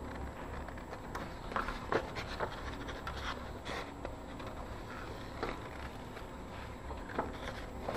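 Scissors snipping through paper in short, irregular cuts, with the sheet rustling as it is turned, over a low steady hum.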